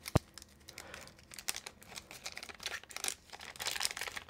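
Small clear plastic bag crinkling and rustling as fingers handle and open it, in scattered short crackles. A single sharp click comes just after the start.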